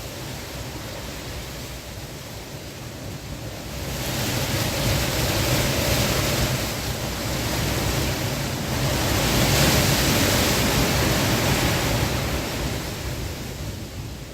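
Strong wind blowing in gusts, a rushing noise that swells about four seconds in, peaks in a stronger gust near the middle, and eases off toward the end.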